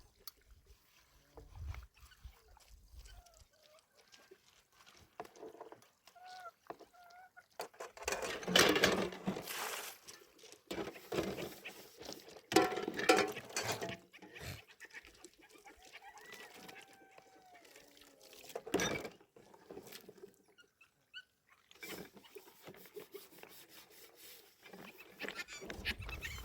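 Fowl calling now and then in short pitched calls, with several louder bursts of noise in the middle stretch.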